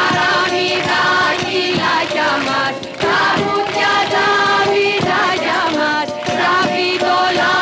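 Women's chorus singing a song over instrumental music, with sharp percussive beats.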